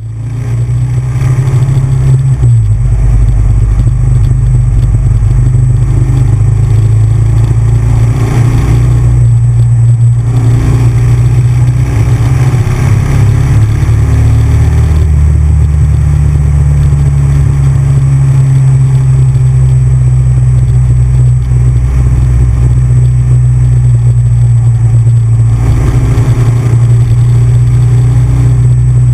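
Big Bear Choppers motorcycle's V-twin engine running loud under way at road speed. The engine note shifts down and back up a few times as the throttle and gears change.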